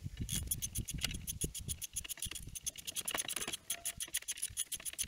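Socket ratchet wrench clicking rapidly as a bolt that has just been broken loose is spun out, with a few low knocks of tool against metal.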